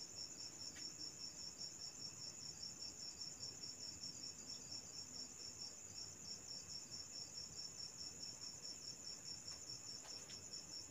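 Faint, steady high-pitched chirping of insects, pulsing evenly several times a second.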